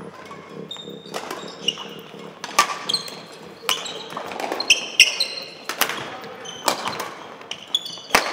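Badminton doubles rally: sharp racket hits on the shuttlecock, roughly one a second, mixed with short high squeaks of sports shoes on the hall floor.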